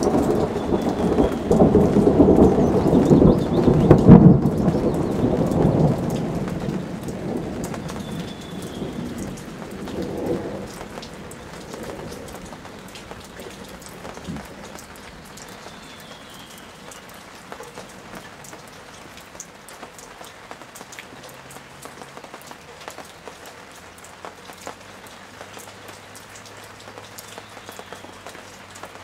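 Thunder rumbling loudly through the first six seconds, peaking about four seconds in and fading, with smaller rolls of thunder near ten and twelve seconds. Steady rain falls throughout, with scattered drop ticks once the thunder dies away.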